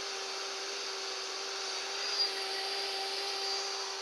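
Cheap electric pressure washer running steadily, its motor and pump giving an even hum with a steady pitch, still working after being battered and having its plastic broken.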